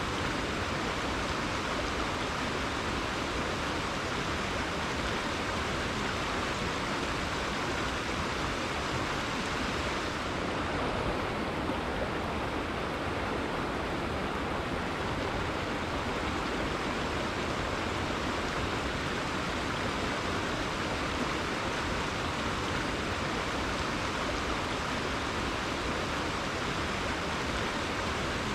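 Rainforest river flowing, a steady, even rush of running water.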